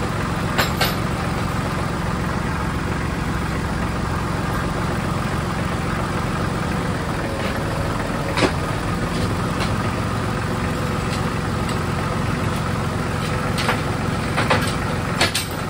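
Compact tractor engine idling steadily, with a few sharp metallic clinks from a chain and steel T-posts being handled at the front loader.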